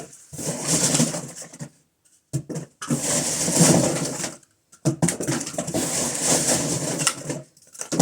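Cardboard tubes and paper confetti rustling and scraping as they are rummaged through in a bin, in three long bursts with short pauses between.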